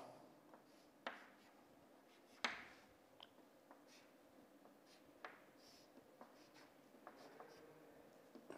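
Chalk tapping and scraping faintly on a chalkboard as lines are drawn: scattered light taps, the strongest about two and a half seconds in.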